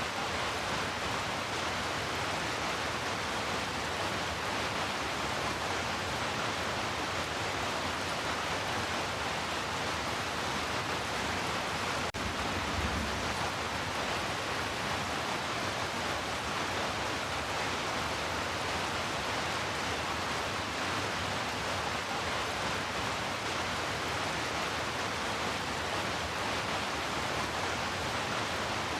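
Heavy rain falling in a steady, even hiss, with a brief low rumble about halfway through.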